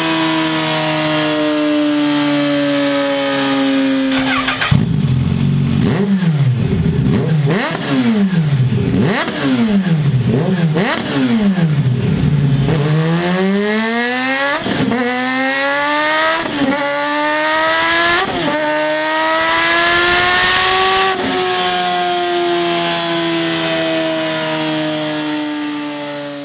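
Kawasaki Z H2's supercharged inline-four engine through a Scorpion slip-on exhaust, running on a dyno. The note first winds slowly down. Then the engine is revved in several quick blips. It then pulls hard up through the gears, the pitch rising and dropping back at each shift, and finally winds slowly down again.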